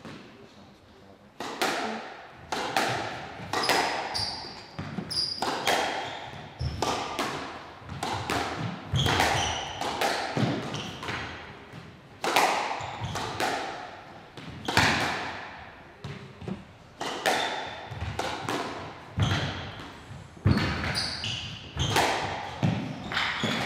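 Squash rally: the ball cracking off rackets and the court walls about once a second, each hit echoing around the court, with short squeaks of shoes on the floor between hits. The hitting starts about a second and a half in.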